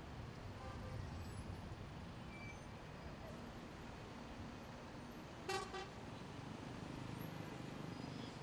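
Steady low rumble of city road traffic, with a vehicle horn giving one short toot about five and a half seconds in.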